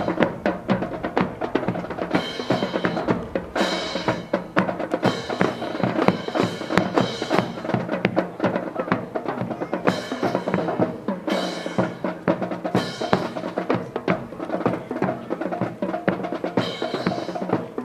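Band music driven by drums: a steady bass drum beat with snare rolls and repeated cymbal crashes.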